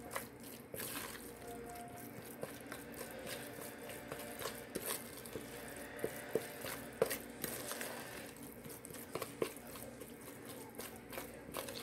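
Raw ground turkey being mixed in a plastic bowl with a plastic spatula: soft wet squishing with scattered small clicks and scrapes against the bowl.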